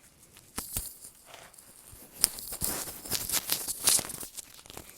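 Paper pages of a picture book rustling as they are handled and turned, with a few light taps; the rustling is busiest in the second half.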